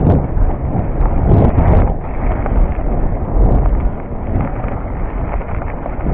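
Wind buffeting a chest-mounted action camera's microphone as a Cube Stereo full-suspension mountain bike runs over a gravel forest track, with tyre rumble and irregular knocks and rattles from the bike.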